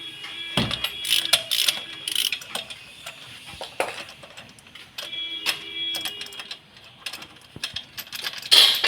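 Irregular clicks and metallic knocks of a socket wrench with a 16 mm spark plug socket turning a spark plug loose, with a louder clink near the end.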